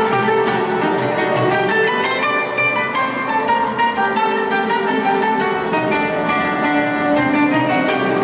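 Live instrumental music: a plucked classical guitar with a held erhu melody, and a djembe and a smaller hand drum struck with bare hands.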